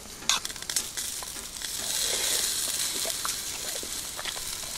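Food sizzling on a wire grill over glowing coals in a small box stove: a steady hiss that swells a couple of seconds in, with two sharp clicks near the start.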